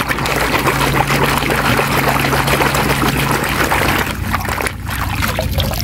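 Muddy water sloshing and splashing in a basin as a hand scrubs a toy under the surface, busiest for the first four seconds and then easing off.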